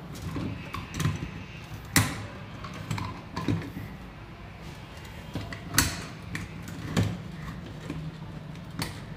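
Scattered plastic clicks and knocks as a round LED concealed light is pressed and worked into its concealed box, its spring clips seating. The two loudest clicks come about two and six seconds in.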